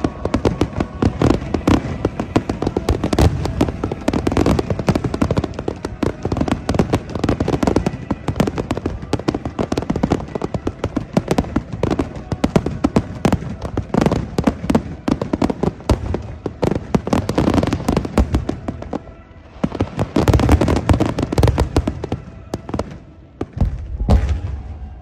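Aerial fireworks display: a dense, rapid run of bangs and crackling bursts, with a deep boom near the end.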